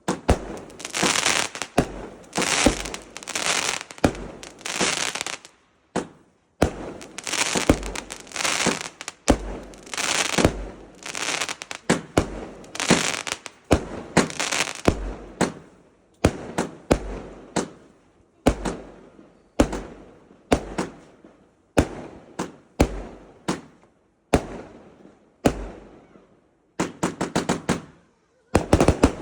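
Fireworks going off in a rapid run: each bang is followed by about a second of dense crackling, one after another roughly every second. Near the end comes a quick volley of sharp pops.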